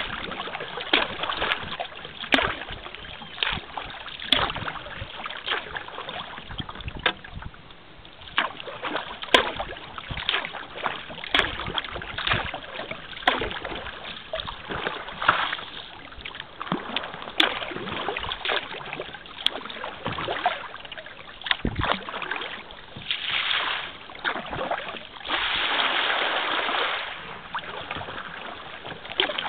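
Kayak being paddled: the paddle blades dip and splash, with irregular small splashes, drips and clicks. A steadier rushing noise rises for about two seconds a little before the end.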